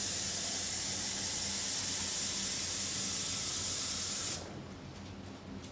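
Kitchen tap running in a steady hissing stream to fill the coffee maker's carafe with water, shut off abruptly about four seconds in.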